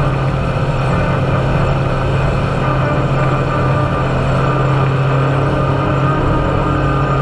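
Side-by-side UTV engine running at a steady, held throttle while driving on sand, heard from inside the cab, with a steady drone and no revving. Wind and tyre noise mix in underneath.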